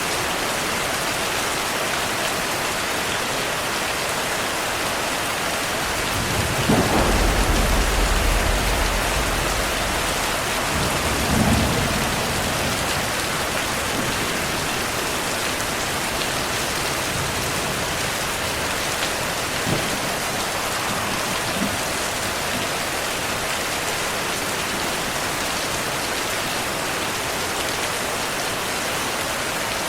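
Steady rain falling, with a deep roll of thunder about six seconds in that rumbles for a few seconds, then a second, shorter rumble a few seconds later.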